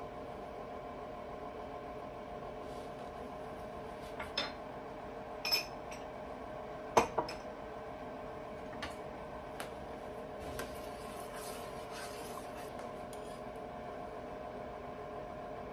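Kitchen utensils clinking against a pot and dishes while soup is salted and stirred. A handful of sharp clinks come in the first half, the loudest about seven seconds in, followed by lighter taps and scrapes. A steady hum runs underneath.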